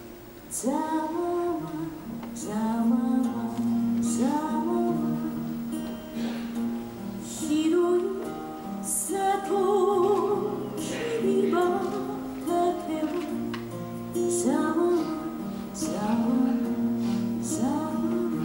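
Music: a woman singing slow phrases that slide up into their notes, over a plucked guitar.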